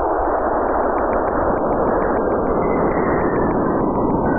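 Sonified plasma-wave recording from Saturn and its moon Enceladus, radio data from NASA's Cassini probe turned into audio: a steady, loud rushing hiss. The plasma waves are moving between the planet and the moon.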